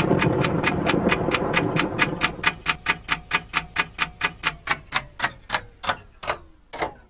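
Rapid sharp ticking, about five ticks a second, over a noisy rush that fades out in the first few seconds. Near the end the ticks slow and a faint tone falls in pitch, then the sound cuts off suddenly.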